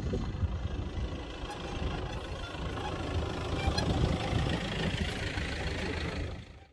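Toyota Hilux camper truck driving slowly past over a gravel dirt track: a steady engine rumble with tyre noise, fading away near the end.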